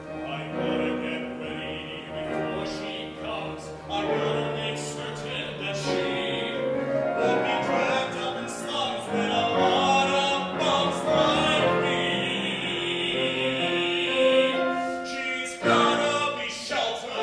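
A man sings a musical-theatre number in a full, operatic baritone over instrumental accompaniment, holding one long note about two-thirds of the way through.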